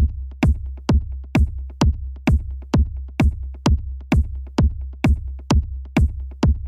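Electronic remix ringtone: a drum-machine kick beat a little over two hits a second over a steady deep bass line.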